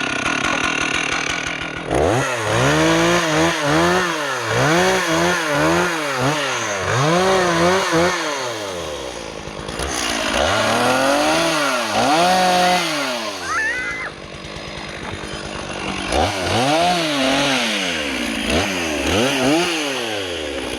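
Stihl two-stroke chainsaw with a 36-inch bar, its engine revving up and falling back over and over, about once a second. There are two short lulls, about nine and fourteen seconds in.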